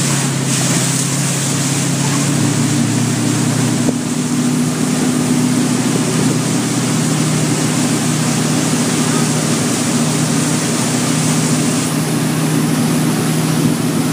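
Towing ski boat's engine running steadily at speed, with the rush of spray and churned water from the wake.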